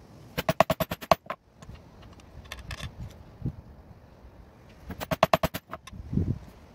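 Small metal fittings clicking against one another and the tabletop as they are handled: two quick runs of about ten sharp clicks each, one near the start and one about five seconds in, then a duller knock shortly after.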